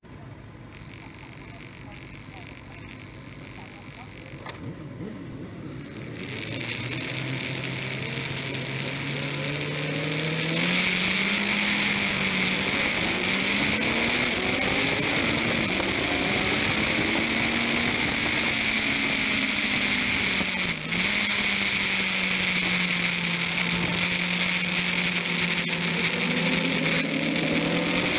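Onboard sound of a sports motorcycle engine pulling away from a standstill on a wet track. Its note climbs from about six seconds in and then holds steady as the bike accelerates through first and into second gear, with loud wind noise over the camera from about ten seconds in.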